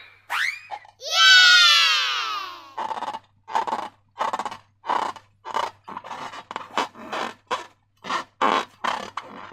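Rubber balloon squealing as air escapes through its stretched neck, a loud whine that falls steadily in pitch over about two seconds. Then comes a run of short wet squelches, about two a second, as slime and air are squeezed out of a balloon.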